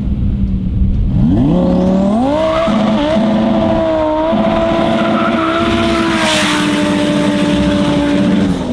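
Supercar engine at full throttle on a flat-out run and flyby. The pitch climbs about a second in and holds high with brief dips. A rush of noise swells as the car passes, and the engine note drops back near the end.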